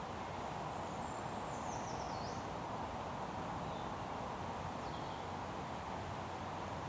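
Steady outdoor background rush of woodland ambience. A faint, thin songbird phrase slides downward about a second in, and two faint high chips follow a few seconds later. The owl itself is silent.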